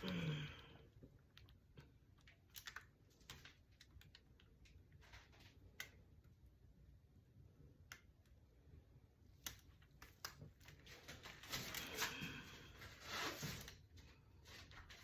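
Faint scattered clicks and light knocks, with a couple of soft rustling swells near the end, from hands tilting and handling a stretched canvas.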